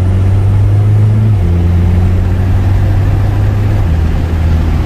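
Alfa Romeo Giulia's engine pulling steadily, heard from inside the car, its low note stepping down abruptly about a second and a half in.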